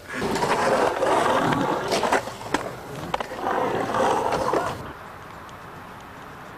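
Skateboard rolling, its wheels rushing over hard ground, with several sharp clacks of the board about two to three seconds in. The sound cuts off abruptly near the end, leaving a low steady hiss.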